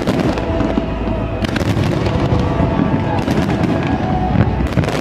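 Fireworks bursting in quick succession: many sharp bangs and crackles over a continuous low rumble of booms, with no break.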